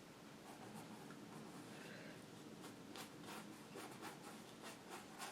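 Fan brush stroking acrylic paint onto canvas: faint, irregular scratchy brushing strokes.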